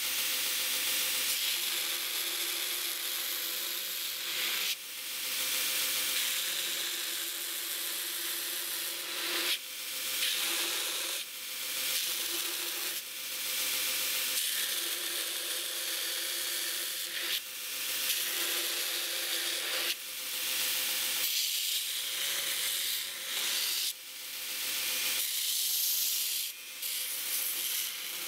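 Belt grinder running with a steady hum while a small Damascus steel handle fitting is ground against the belt by hand. The grinding hiss swells and drops every few seconds as the piece is pressed on and eased off in repeated passes.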